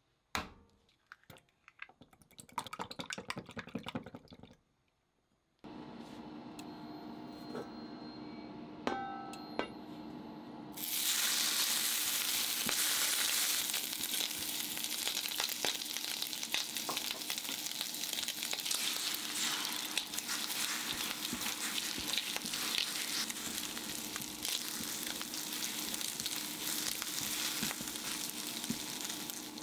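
Lettuce leaves crinkling as they are torn by hand. Then the hob hums and gives a few short beeps. From about a third of the way in, bacon sizzles loudly in an oiled frying pan, stirred and scraped with a spatula, and later beaten egg scrambles in with it.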